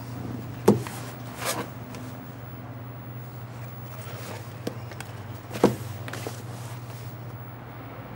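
A few scattered knocks and a brief rustle over a steady low hum: a person settling in an office chair and handling a paperback book.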